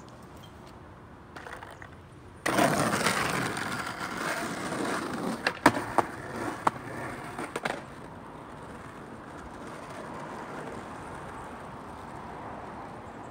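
Skateboard wheels rolling on asphalt and concrete, starting suddenly about two and a half seconds in and running for about five seconds. Partway through come several sharp clacks of the board being popped and landed during a nose manual to nollie shove-it attempt, after which the rolling drops away.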